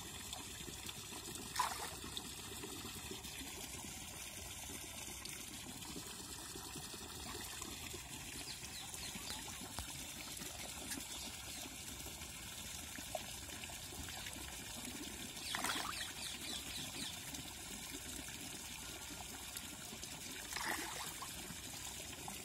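Water trickling and pouring steadily into a lined fish-farm pond, with three brief splashes as fish stir at the surface: one about a second and a half in, a longer one past the middle and one near the end.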